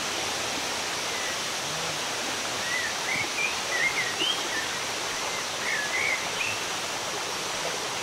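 Steady rushing of waterfall water, with a few short, high bird chirps between about three and six seconds in.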